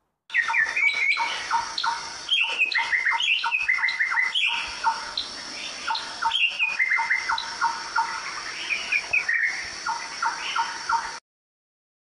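Songbird singing: quick runs of short, squeaky chirps repeated over and over, dipping briefly about two seconds in. It cuts off abruptly about a second before the end.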